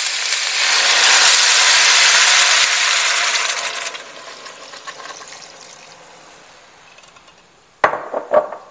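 Chicken broth poured into a hot stainless steel pot of seared potatoes and green beans, hissing loudly with steam as it hits the hot metal, then dying away over a few seconds to a faint sizzle. A few sharp knocks near the end.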